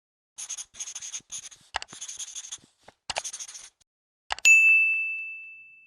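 A run of short, scratchy strokes with a few sharp clicks, then a single bright ding about four and a half seconds in that rings out and fades over about two seconds.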